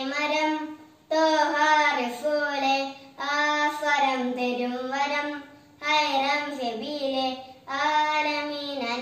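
A boy singing a devotional song solo and unaccompanied, in long held phrases with short breaks for breath between them.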